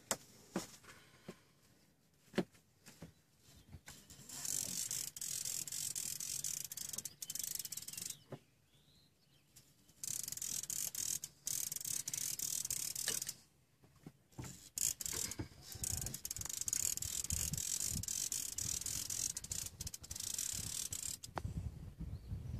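A fishing reel ratchets in stretches of a few seconds, with short pauses between them, as a striped bass is being played on the line.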